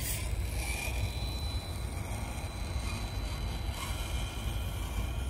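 FMS FCX24 Power Wagon 1:24 RC crawler's small electric motor and gears running as the truck drives up over dirt and grass, with faint thin whining tones over a steady low rumble.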